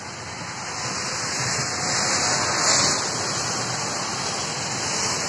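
Steady rush of rainwater flowing along a concrete storm drain, swelling louder about two to three seconds in.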